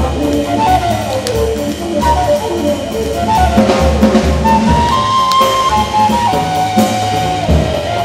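Jazz music: a single wind instrument plays a melody of short stepping notes that settles into longer held notes in the second half, over a drum kit.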